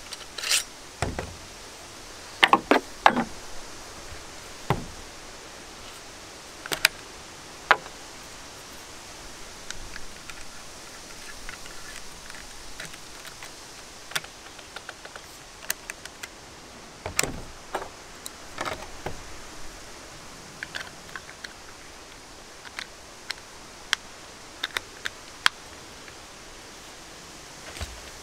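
Scattered clicks, knocks and rattles of plastic and metal parts as attachments are clipped onto a 20 V cordless jigsaw; the saw's motor is not running.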